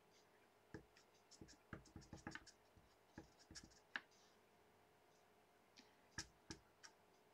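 Faint light taps and clicks of a clear acrylic stamp block being handled and dabbed onto a black ink pad, a cluster in the first few seconds and a few more taps near the end.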